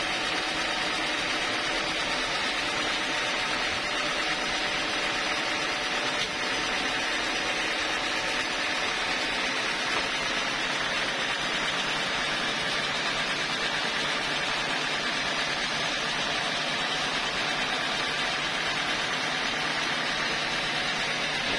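Band sawmill running steadily and unloaded between cuts: a constant machine hum with an even hiss over it, with no change in load.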